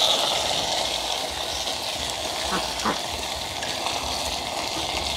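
Coconut water poured into a pot of fish and pork fat, the pour tailing off at the very start, then a steady hiss of the liquid in the hot pot.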